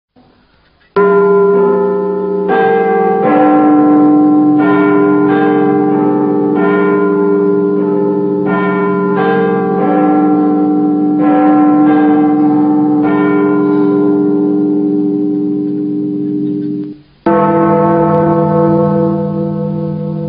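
Clock chime ringing a slow tune of overlapping bell tones, starting about a second in; after a short break near the end it strikes again.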